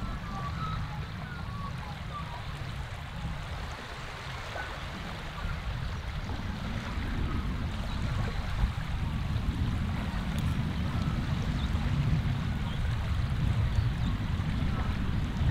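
Small wind-driven waves lapping and washing onto a muddy lakeshore, with wind buffeting the microphone as a low rumble that grows stronger about halfway through.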